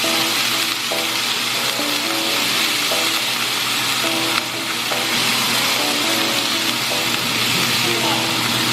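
Food frying in a hot pot with a steady sizzling hiss, under background music playing a simple melody.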